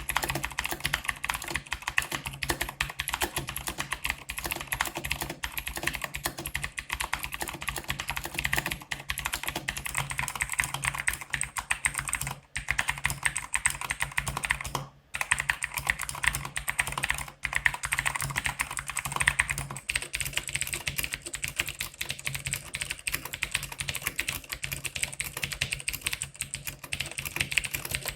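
Mechanical keyboard being typed on fast and continuously, a dense stream of key clicks and bottom-outs, broken by two short pauses a little under halfway through.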